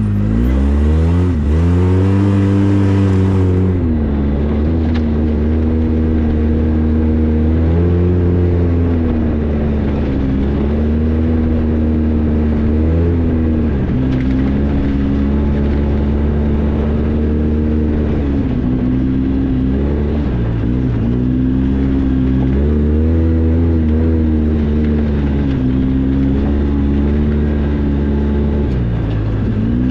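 Polaris RZR 800 side-by-side's twin-cylinder engine running under way, heard from the driver's seat. Its pitch rises and falls again and again as the throttle is opened and eased off. A hiss of noise rides over it for the first three seconds or so.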